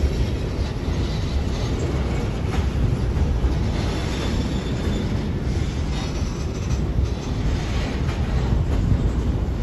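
Freight train rolling past: a steady low rumble of wagons on the rails, with faint knocks and a little wheel-on-rail hiss.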